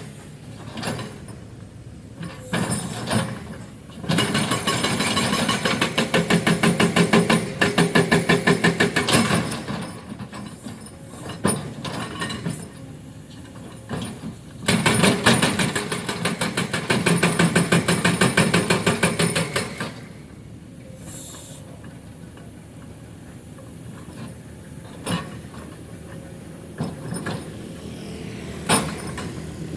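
Excavator-mounted hydraulic breaker hammering limestone rock in two long bursts of rapid, even blows, each about six seconds. Between the bursts, the excavator's diesel engine runs with a few single knocks.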